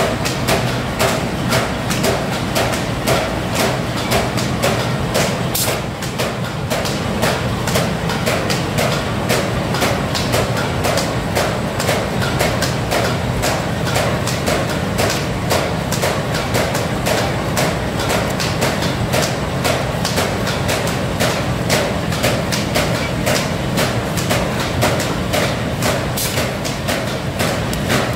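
RVB 1824 automatic paper bag making machine running at production speed, a steady, rapid mechanical clatter as it turns out kraft paper bags.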